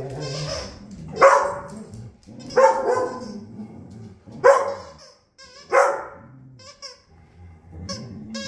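A dog barking four times, loud and sharp, about one to two seconds apart.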